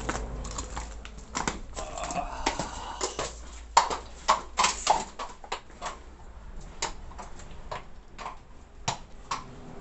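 A horse's hooves clip-clopping in irregular steps on the hard floor of a narrow tunnel, each knock echoing briefly off the vaulted walls.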